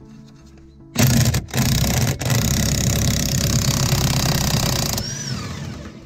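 Cordless impact wrench hammering in a fast rattle on the bolt at the base of an Airmatic air strut, undoing it. It stops twice very briefly, then is released about five seconds in, and its motor winds down with a falling whine.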